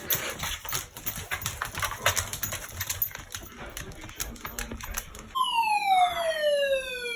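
Weather alert radio going off for its weekly test: about five seconds of dense crackling clicks, then a siren-like tone that slides steadily down in pitch.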